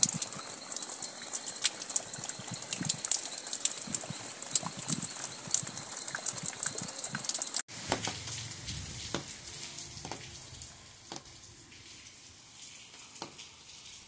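Rain dripping and pattering, with many separate drops striking over a steady hiss. About halfway through, a sudden cut to a quieter recording where only sparse drops fall.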